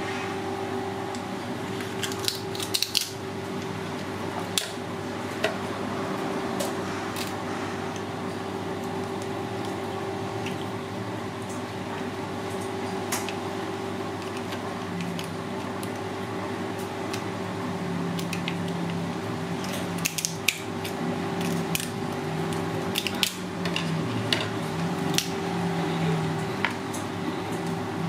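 Scattered sharp clicks and cracks of cooked crab shell being broken apart by hand and a knife tapping on a plate, over a steady background hum.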